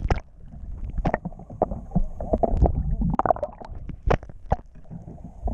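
Muffled water sounds heard through a camera held underwater beside a boat's hull: a low rumbling slosh with scattered clicks and knocks.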